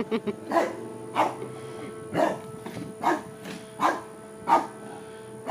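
English bulldog barking about seven times, one deep bark every half second to second, upset by the lawnmower. A steady hum runs underneath.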